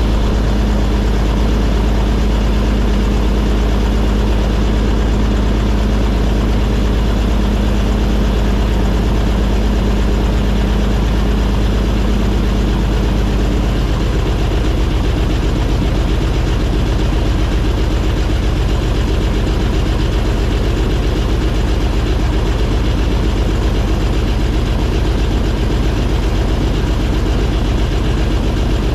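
Airboat engine and propeller running steadily under way, heard from on board. The pitch of the drone shifts about halfway through.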